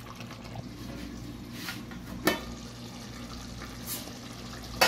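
Chicken curry simmering in a metal pot on a gas burner: a steady low bubbling hiss. There is a sharp metal clink about halfway through as the pot lid is lifted, and a louder clank at the very end.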